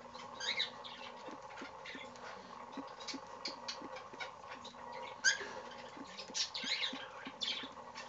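Baby cockatiel pecking and nibbling at food, a quick irregular run of small beak clicks and scratches, with a couple of short high squeaks about half a second in and again about five seconds in. A steady faint hum runs underneath.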